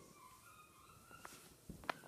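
Faint, thin whimpering from teddy bear puppies, with a few light clicks of paws and toys on the sheet and one sharper click near the end.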